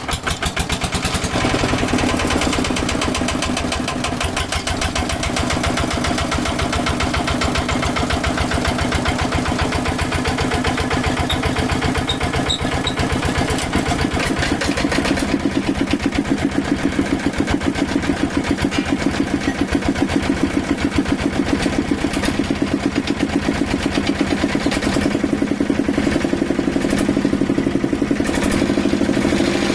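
Kubota Quick Boxer 1000 diesel tractor engine running just after start-up, a steady rapid chugging at idle. Its pitch rises slightly about halfway through and again near the end as the engine speed creeps up.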